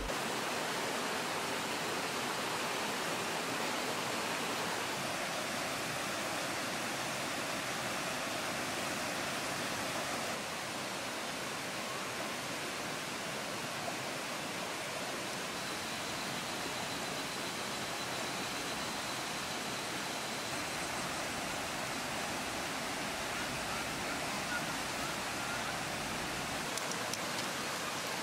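Steady rushing of a rocky mountain stream, water pouring over stones in an even hiss.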